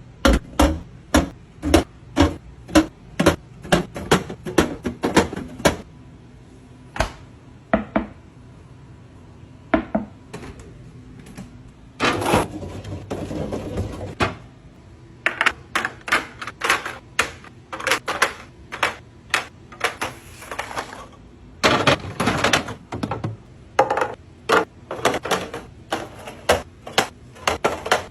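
Quick clicks and knocks of hard objects being handled and set down, two or three a second, with brief rustling stretches about twelve and twenty-two seconds in.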